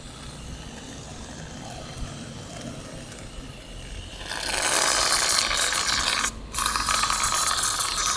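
Aerosol whipped-cream can spraying cream onto a crepe: a loud hissing spray that starts about halfway through and comes in two long spurts with a brief break between them.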